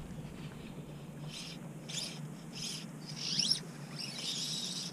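Fly line hissing through the fly rod's guides and the caster's fingers during a cast: a run of short high swishes about every half second, with a squeaky rising zip about three and a half seconds in.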